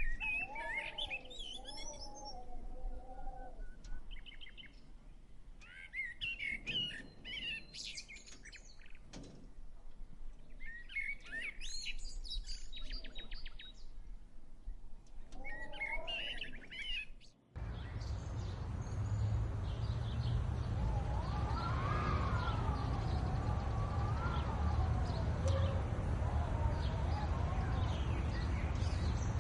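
Small birds chirping and twittering in several short bursts. A little over halfway through, the sound cuts abruptly to a steady low rumble, with a long wavering tone rising and falling over it.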